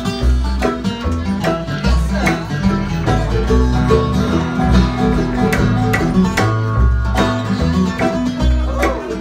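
Live bluegrass band playing an instrumental passage: mandolin, acoustic guitar, resonator guitar and upright bass, with the bass plucking steady low notes under fast picked strings.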